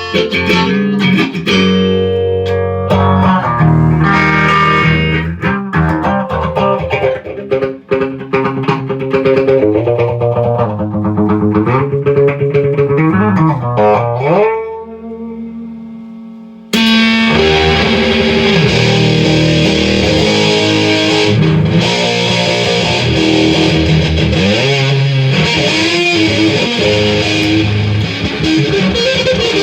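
Electric guitar played through a flanger pedal: picked notes and string bends, then about 17 seconds in it switches abruptly to a dense, distorted tone.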